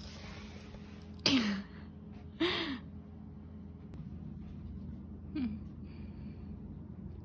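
Three short, breathy vocal sounds, each dipping in pitch: one about a second in, the loudest, another about two and a half seconds in, and a fainter one about five seconds in.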